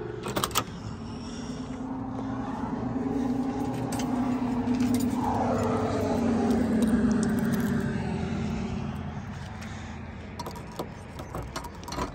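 A car going by, growing louder to a peak about seven seconds in, its engine note dropping in pitch as it passes, then fading. Near the end, a bunch of keys jangles and clicks against a car's trunk lock.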